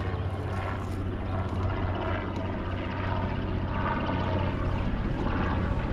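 Bass boat's outboard motor running steadily with a low, even hum.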